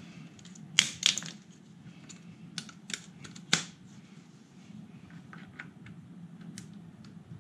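Sharp clicks and knocks of small roof-rack parts being handled and fitted together by hand, loudest about a second in, with another sharp one about three and a half seconds in and fainter ones after.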